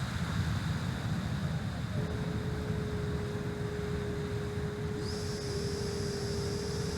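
Steady rushing wind noise on the microphone, with the thin steady whine of an electric ducted-fan RC jet. A higher whine joins about five seconds in.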